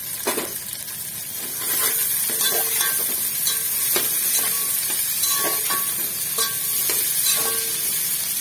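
Chopped vegetables (peas, capsicum, onion, carrot) sizzling in hot oil in a metal pot while a metal spatula stirs them, clinking and scraping against the pot. The sizzling grows louder about two seconds in.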